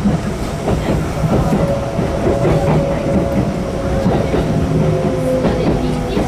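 Kintetsu electric express train heard from inside the car, its wheels clicking over rail joints and points, with a thin whine that slowly falls in pitch as it slows to stop at a station.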